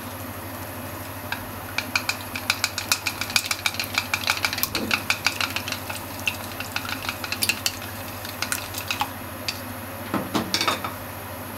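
Chopsticks beating a raw egg in a bowl: a fast run of light clicks as the tips strike the bowl, several a second, followed by a few louder knocks near the end.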